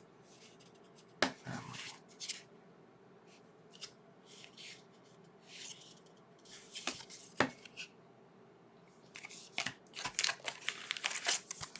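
Trading cards handled and flipped through one by one: faint, scattered rustles of card stock with a few sharp clicks of card edges, the rustling growing denser near the end.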